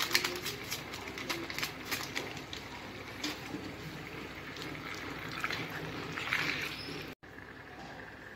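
A spoon stirring chicken pieces into thick masala in a frying pan, with irregular scrapes and clicks against the pan and a wet hiss. The sound cuts off abruptly about seven seconds in, leaving a fainter steady hiss.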